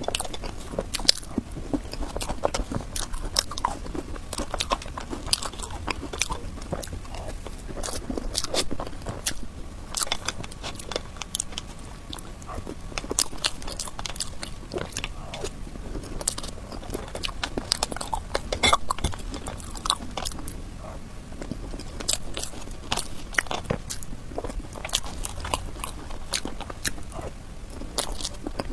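Close-miked eating of soft cake: bites and chewing with many irregular wet mouth clicks.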